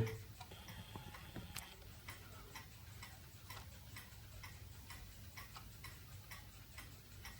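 Faint, evenly spaced ticks from a cheap quartz clock movement whose stepper motor advances the hands in pulses rather than sweeping continuously.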